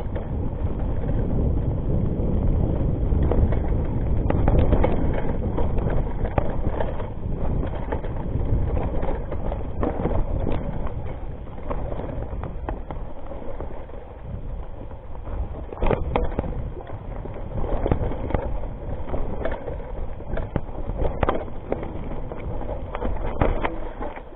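Rockrider ST 520 mountain bike descending a rough dirt and rock trail at speed: a steady rumble of wind on the microphone and tyre noise, with frequent sharp knocks and rattles from the bike hitting bumps and stones, more of them in the second half.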